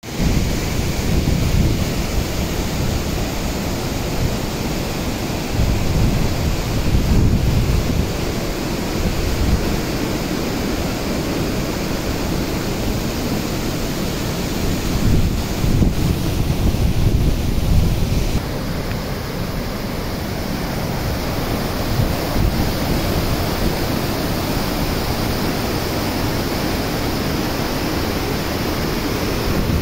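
Waterfall and whitewater river rushing steadily, with gusts of wind buffeting the microphone in the first half.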